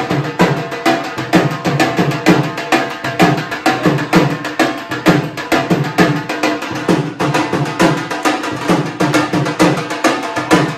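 A shoulder-slung drum beaten in a fast, steady rhythm of several strikes a second, with music.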